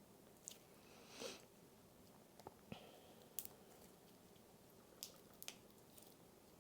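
Cereal slime being slowly stretched and folded by hand, very quiet: a soft squish about a second in and a handful of faint scattered clicks and crackles.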